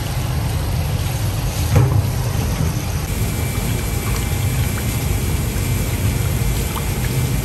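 Water sloshing and splashing in a tub as raw whole chickens are rinsed by hand, over a steady low rumble. A single knock sounds just under two seconds in.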